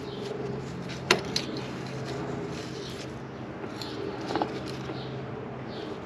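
Two sharp metal clinks, the first about a second in and louder with a short ring, the second about three seconds later, as tools and parts knock together during differential reassembly, over a steady low hum.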